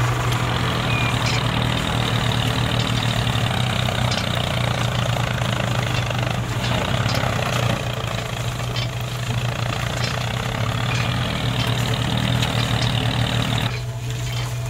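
A miniature tractor's motor running steadily as it pulls a seed drill through sand: a low drone with a fast pulsing. A hiss above it drops away about a second before the end.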